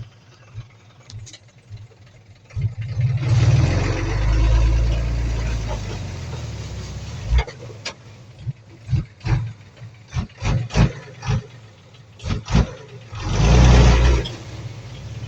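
Bulldozer diesel engine running and swelling under load twice, with a string of sharp clanks and knocks in between.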